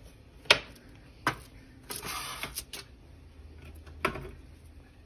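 Pastries set down on a foil-lined metal baking tray: a few sharp taps and a crackly rustle of crumpled aluminium foil, the loudest tap about half a second in.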